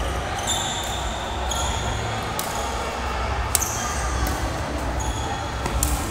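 Badminton rally on an indoor court: a few sharp hits of rackets on the shuttlecock, with short high squeaks of sports shoes on the court floor in between, in a large hall.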